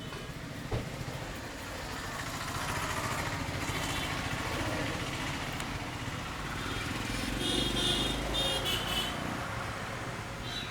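Street traffic noise with a motor vehicle engine passing, swelling a few seconds in and again near the end. A single sharp click about a second in.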